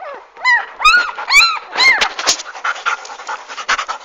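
Labrador × German Shepherd-mix puppies whining: four short, high yelping whines that rise and fall in the first two seconds, then quick, noisy panting.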